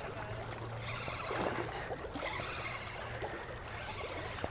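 Spinning reel being cranked while fighting a large hooked fish, with small irregular ticks over a steady wash of water noise.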